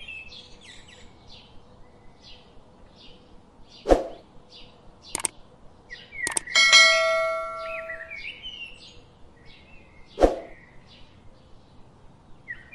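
Small birds chirping over and over, with a few sharp knocks. About six and a half seconds in there is a click and a ringing bell-like ding that fades away: a subscribe-button notification sound effect.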